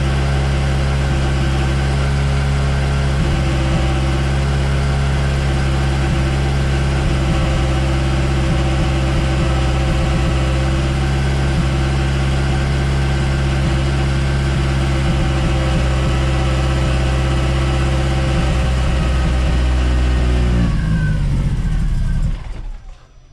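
Freshly rebuilt turbocharged Ford Zetec four-cylinder engine idling steadily. About 21 seconds in it is switched off, and it winds down and stops a second or so later.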